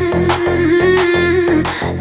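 Music: one long held note, wavering slightly, over a steady pulsing low beat.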